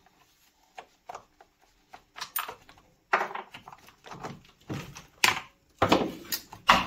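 Metal clicks and scrapes of a wrench loosening the bar nuts on a Stihl MS271 chainsaw, faint at first. From about three seconds in come louder knocks and scraping, with the sharpest knocks near the end as the plastic clutch cover is worked off the bar studs.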